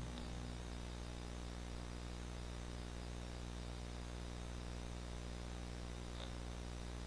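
Steady low electrical hum and hiss of blank videotape playing back, with a faint click about six seconds in.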